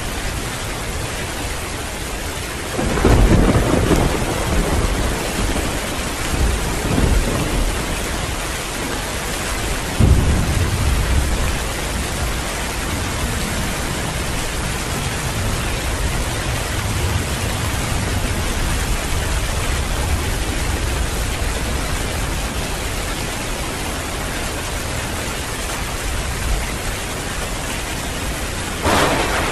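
Heavy rain falling steadily, with thunder. A crack about three seconds in rumbles on for several seconds, a second sharp clap comes about ten seconds in, and another thunderclap starts near the end.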